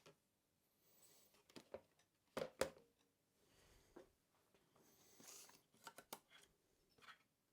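Faint clicks and light knocks of small laptop parts and a drive being handled, the loudest a pair of knocks about two and a half seconds in, with a brief scrape around five seconds in.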